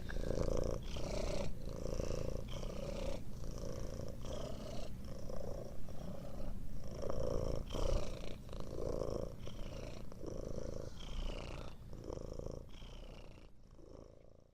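Cat purring in a steady rhythm that pulses with each breath, fading out near the end.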